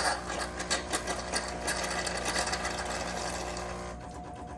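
Jenn-Air built-in coffee machine's pump running to dispense hot water: a steady mechanical hum with fast rattling. The hum drops out about four seconds in, leaving a thin steady tone.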